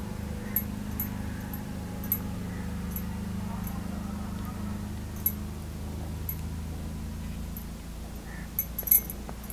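A low steady hum with faint small clinks and ticks scattered through it, the sharpest ones near the end.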